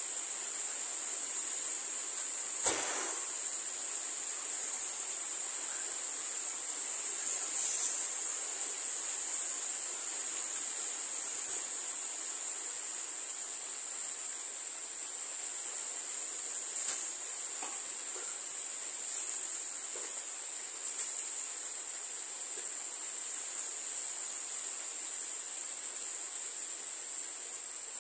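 Steady high chirring of insects over the even hiss of rain and rainwater pouring into a plastic basin. A single sharp knock comes about three seconds in, with a few fainter clinks and splashes later.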